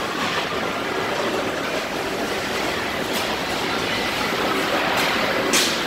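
Steady industrial din of factory machinery on a plant floor, with brief sharp hisses about three seconds in, about five seconds in, and a louder one near the end.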